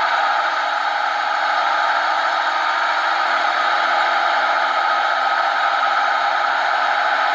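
MCI D4000 coach idling at a standstill: a steady, unchanging whir with no revving or braking.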